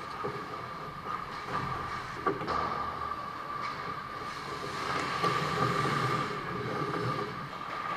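Ice hockey skates scraping and carving on the ice, with a few sharp clacks of sticks, busier and louder as players close in on the net past the middle, over a steady hum.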